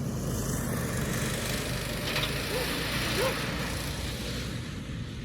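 Mini wedge race car's small engine running steadily as the car is driven, getting a little louder over the first second.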